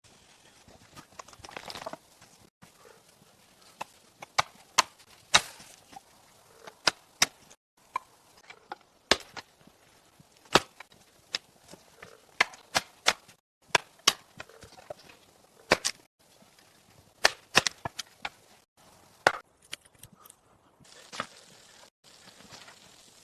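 Wood being chopped with an axe or hatchet: sharp, irregular strikes, often one or two a second, some in quick pairs.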